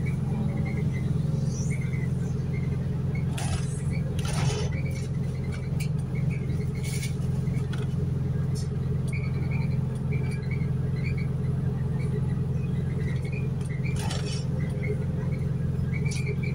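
Inside the upper deck of a New Routemaster hybrid bus on the move: a steady low drone from the drivetrain and road, with a few short noisy swishes or rattles, around four seconds in and again near fourteen seconds.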